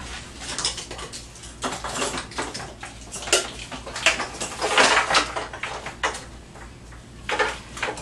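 Irregular metallic clinks and clanks from work on an engine hanging in hoist chains as it is unbolted for removal, with a longer rattling scrape about five seconds in.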